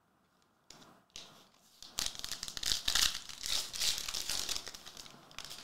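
Foil trading-card pack crinkling and being torn open by hand, starting about two seconds in after a few faint rustles.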